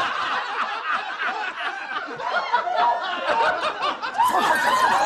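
A group of men and women laughing together, many voices overlapping.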